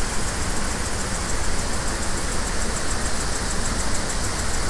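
Iguazu Falls, many waterfalls pouring at once: a steady, even rush of falling water with a deep rumble underneath.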